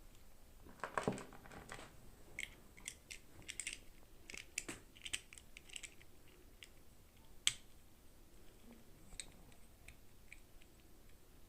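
Scattered light clicks and crinkles of plastic toy packaging being handled and opened, with a fuller rustle about a second in and one sharp click a little past the middle.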